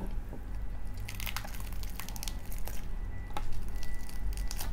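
Crispy pata (deep-fried pork leg) skin crunching and crackling in a few sharp, irregular bursts as the crisp rind is broken into.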